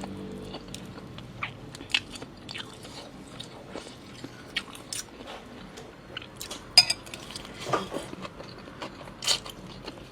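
A person eating noodle soup, with chewing and biting and scattered sharp clicks of utensils against a bowl.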